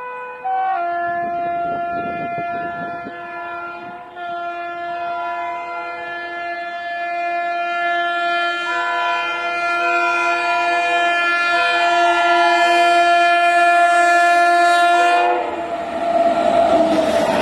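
WAP-7 electric locomotive's air horn sounding one long blast. It changes notes just under a second in, then holds for about fifteen seconds, growing louder, and cuts off suddenly. The rush of the train passing follows.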